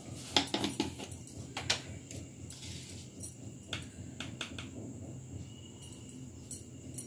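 Scattered light clicks and clinks of a small measuring spoon and salt container as salt is scooped and sprinkled into a pot of spinach chicken curry, over a faint steady hum.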